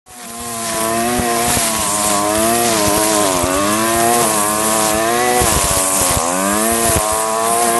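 Curved-shaft string trimmer (weed eater) engine running at high speed while the line cuts grass, its pitch dipping and rising again several times.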